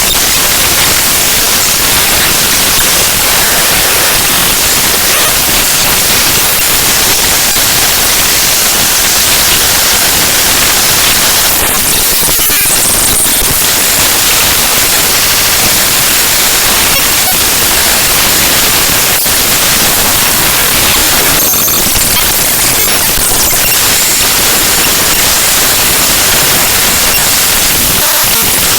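Loud, steady harsh static: the raw bytes of a program library file (the OpenGL Extension Wrangler DLL) played back as audio samples, which comes out as dense hiss with little structure. The texture shifts briefly twice, around the middle and again a little later.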